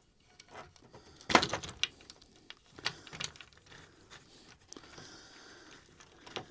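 Crib parts and bolt hardware being handled during assembly: a few scattered knocks and clicks, the loudest about a second and a half in.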